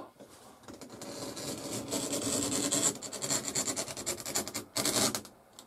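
A blade cutting through water-damaged, vinyl-covered wall paneling: a rough, rasping scrape of many quick strokes, starting about a second in and stopping near the end.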